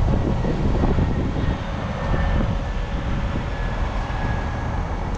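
Tow truck's hydraulic spectacle lift raising and folding up: a steady mechanical drone with a faint high whine from the hydraulics running.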